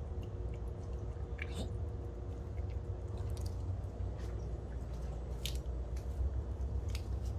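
A cat licking a lickable squeeze-tube cat treat: scattered small wet smacking clicks over a steady low rumble.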